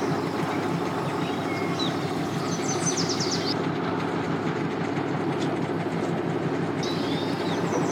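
Steady low rumble of boat motors running at a launch ramp, mixed with wind noise, with a few brief bird chirps.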